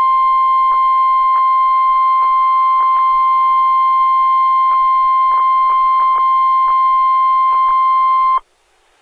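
NOAA Weather Radio 1050 Hz attention tone: one loud, steady, single-pitched tone that cuts off suddenly about eight seconds in. It is the alert signal for a severe thunderstorm warning that is about to be broadcast.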